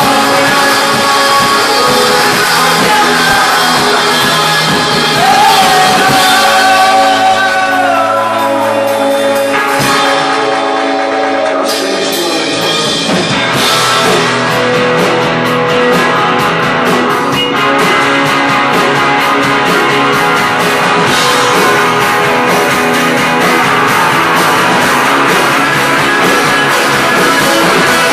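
A live indie rock band playing loud in a small club: electric guitars, keyboard, drums and a male lead vocal. Midway the drums and bass drop away for a few seconds, then the full band comes back in with the drums.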